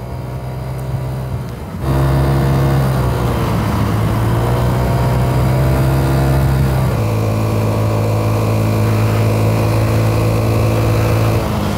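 A vehicle engine running at a steady road speed: an even hum that is quieter for the first two seconds, then louder. Its pitch shifts abruptly twice, about two seconds in and again about seven seconds in.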